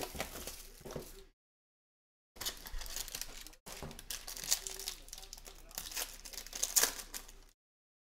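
Foil trading-card pack wrapper crinkling and tearing as it is opened by hand: a short rustle, a pause of about a second, then several seconds of crinkling with sharp tearing crackles.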